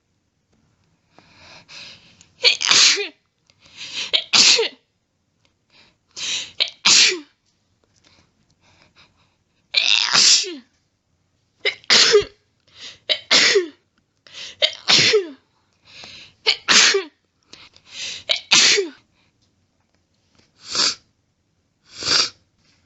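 A person sneezing over and over in an allergy sneezing fit: about a dozen loud sneezes one to three seconds apart. Many come in quick pairs or have a quieter breathy build-up just before.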